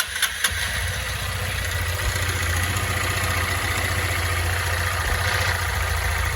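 Honda CG 160 Start motorcycle's single-cylinder engine running with a metallic rattle from inside the engine (a 'cascavel'), the sign of internal engine damage. A few sharp knocks come in the first half second, then it runs steadily.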